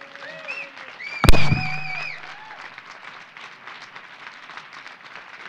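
Audience applauding, with a few voices whooping and a single loud thump a little over a second in.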